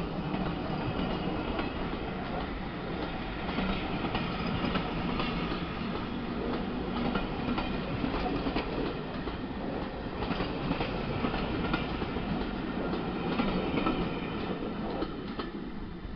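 Passenger coaches of a steam-hauled train rolling past, wheels clicking and clattering over the rail joints. The sound fades near the end as the last coach goes by.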